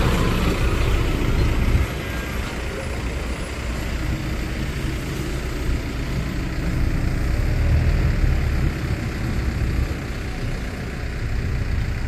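Heavy tipper truck's diesel engine running as the truck moves slowly, a steady low rumble that swells about seven seconds in, eases, and rises again near the end.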